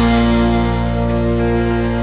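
Background music: a held final chord ringing out and slowly fading at the end of a song.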